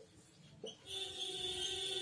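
A marker squeaking on a writing board: a faint short squeak about half a second in, then one steady, high, even-pitched squeak lasting about a second in the second half.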